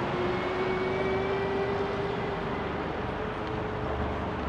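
Steady rushing noise of a bicycle ride on a paved path, with a faint steady hum that drifts slowly in pitch.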